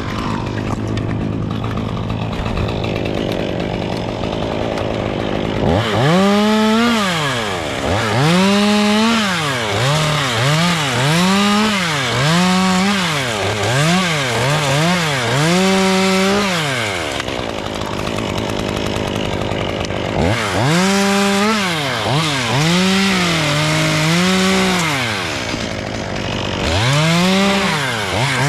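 Two-stroke chainsaw running steadily, then revving up about six seconds in and cutting wood, its pitch dipping and climbing again and again as the chain bites and clears. It eases off briefly around the middle, then revs and cuts again twice more.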